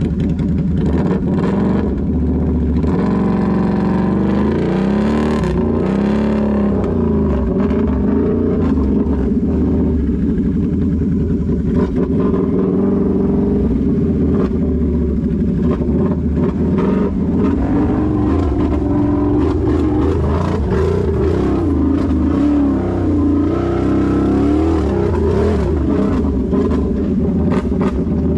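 Can-Am Renegade XMR 1000 ATV's V-twin engine, through an aftermarket megaphone exhaust, running hard and repeatedly revving up and falling back. Short clicks and knocks come and go over the engine.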